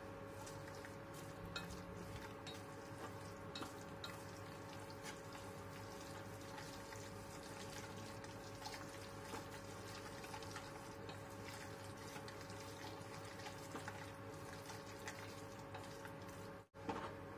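Squid in chili sambal sizzling softly in a stainless steel saucepan while being stirred with wooden chopsticks, with many small crackles and clicks over a steady hum. The sound drops out briefly near the end.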